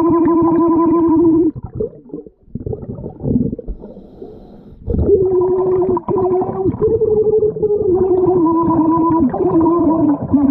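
A woman singing a holiday tune underwater with the scuba regulator out of her mouth: held, muffled, buzzing notes, with a break of about three seconds in the middle before the tune resumes.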